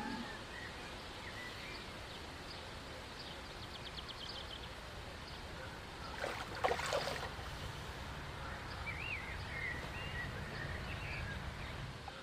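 Quiet pond-side ambience with a few faint bird chirps. About six and a half seconds in comes a brief, louder noise.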